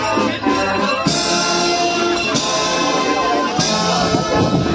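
Band music with held notes and drums, a cymbal-like crash about every second and a quarter.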